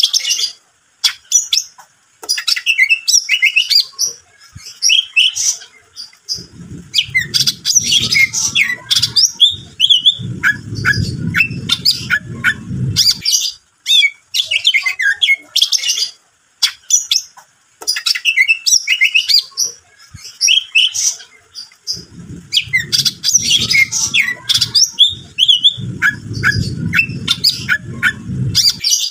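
Cucak ijo (green leafbird) singing loudly and without pause: rapid chirps, trills and whistling glides in a pattern that repeats about every sixteen seconds. A low rumbling noise runs beneath it twice, for several seconds each time.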